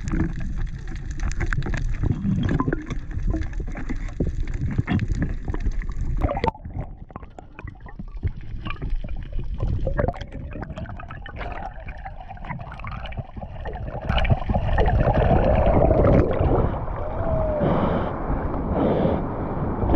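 Underwater audio through an action-camera housing: water noise full of short crackling clicks. It grows louder and rushing in the last several seconds as the diver swims up and breaks the surface.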